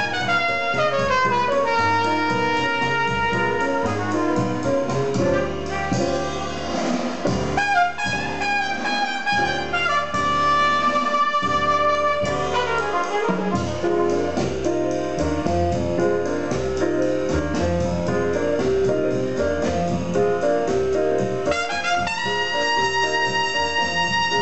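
Recorded jazz with brass and piano, played through Tannoy Kensington dual-concentric floor-standing loudspeakers driven by a McIntosh MA7000 integrated amplifier, heard in the room.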